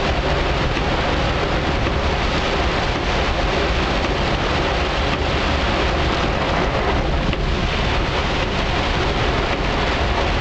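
Heavy rain hitting the roof and windshield of a moving vehicle, heard from inside the cab: a steady, dense hiss over the vehicle's low engine and road rumble.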